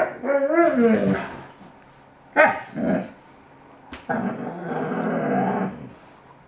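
Alaskan Malamute puppy 'talking' as it complains. It opens with a sudden yelp that runs straight into a wavering, pitch-bending woo-woo call, gives a shorter call about two and a half seconds in, then a longer, rough, grumbling call near the end.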